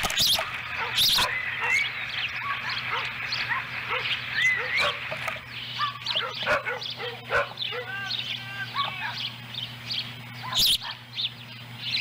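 Ospreys on the nest calling over and over: short whistled chirps that rise and fall, coming several in quick succession at times. A steady low hum runs under them, with a few sharp knocks, the loudest near the end.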